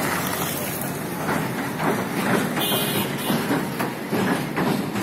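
Passenger train rolling across a steel rail bridge, its wheels clattering over the rail joints in an irregular run of clacks.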